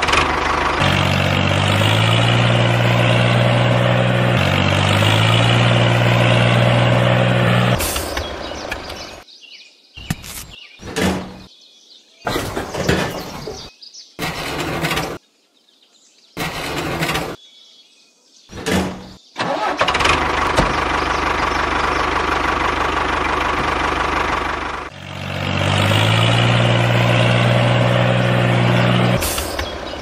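Small motor of a DIY mini tractor running, in stretches that start and stop abruptly. Its low hum shifts in pitch a couple of times.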